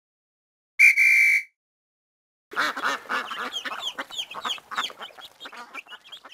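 A single short, loud, steady high tone, then cartoon baby chicks peeping: many quick overlapping chirps that thin out near the end.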